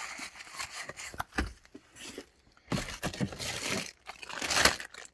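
Packaging crinkling and rustling as items are handled and pulled from a box, in irregular bursts with a few sharper crackles; the loudest stretch comes near the end.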